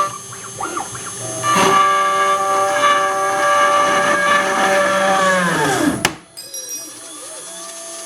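CNC machine spindle whining steadily at several pitches, then spinning down with a falling pitch about six seconds in, ending in a sharp click.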